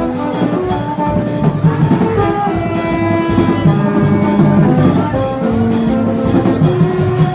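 Music with brass instruments playing held notes over drums and percussion keeping a steady beat.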